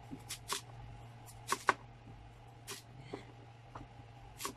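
Kitchen knife slicing through purple sweet potato and knocking down on a plastic cutting board, a sharp knock with each cut at an uneven pace, the loudest two close together about a second and a half in. A steady low hum runs underneath.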